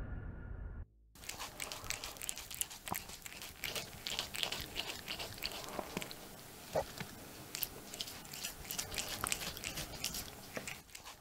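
A cat crunching and chewing food from its bowl, in a quick, irregular run of small crunches that begins about a second in.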